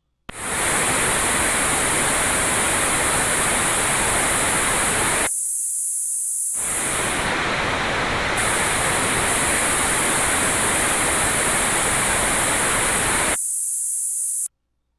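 Computer-generated tinnitus masking sound: a loud, steady high hiss layered over a broad, even noise like pink noise. It starts abruptly, the lower noise drops out for about a second near the middle and again shortly before the end, and then the whole sound cuts off suddenly.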